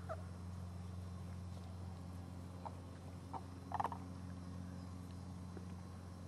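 Labrador retriever puppies giving a few faint, short whimpers and squeaks, with a brief cluster of little yelps a little under four seconds in.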